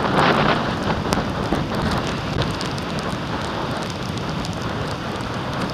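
Steady rushing noise of wind-driven rain and surf, with scattered light ticks of raindrops striking the microphone.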